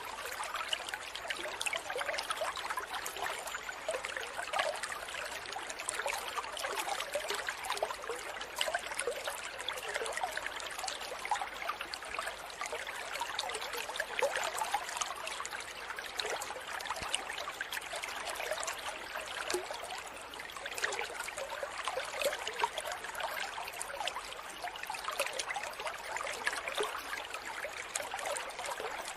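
Aquarium air stone bubbling steadily, a continuous fizzing trickle of many small bubbles rising through the tank water.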